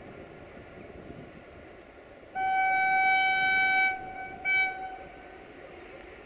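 Horn of a Romanian class 60 (060-DA / LDE2100) diesel-electric locomotive: one long blast of about a second and a half, then a short second blast. Under it runs the faint low rumble of the approaching train.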